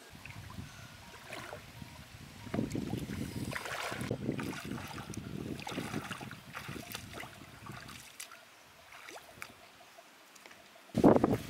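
Bare feet wading through shallow lake water, with irregular splashes at each step, dying down as the walker reaches the sandy shore. A sudden louder scuffling noise starts just before the end.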